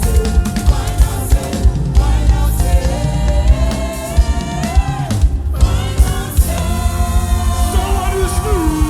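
Live gospel worship music: a band with drums and bass keeps a steady beat under long held sung notes that glide between pitches.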